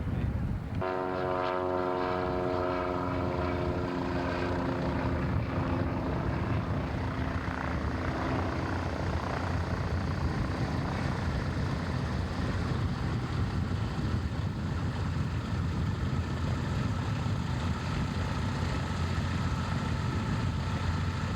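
Propeller aircraft engine running. A clear steady engine tone stands out for the first few seconds, then fades into a loud, even engine noise.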